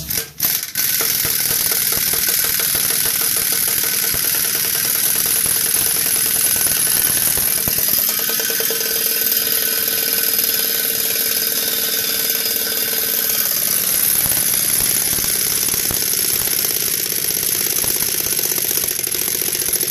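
Cordless impact wrench hammering steadily as it turns the threaded rod of a homemade screw press, pushing a cylinder liner out of a diesel engine block. It starts under a second in after a couple of short knocks.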